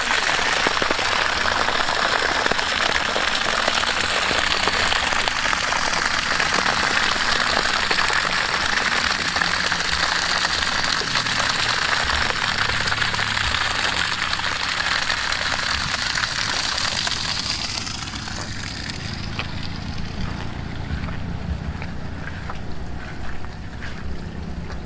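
Water gushing steadily from the open end of a PVC outlet pipe and splashing onto grass, delivered by a non-electric pressure (siphon) pump drawing from a river. The rush fades about 18 seconds in, leaving wind on the microphone and a few light ticks.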